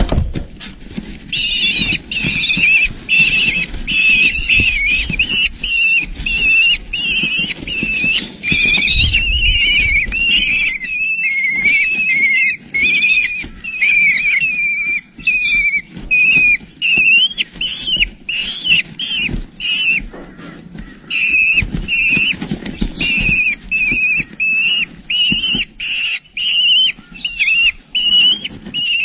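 Young kestrel calling over and over: high-pitched notes that bend up and down, about two a second, over a low rumbling noise.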